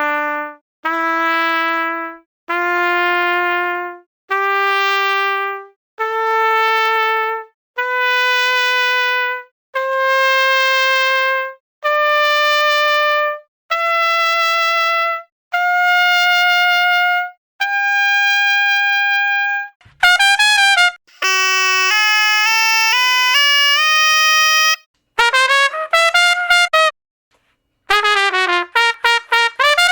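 Solo trumpet playing single held notes of about a second and a half each, climbing one step at a time up a scale. About two-thirds of the way through it breaks into quick runs and flourishes with notes bending up and down.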